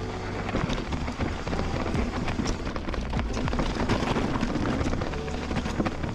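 Mountain bike rolling fast over a rough dirt trail: tyres on dirt and gravel with a steady rush of noise, and many quick clicks and knocks as the bike rattles over bumps.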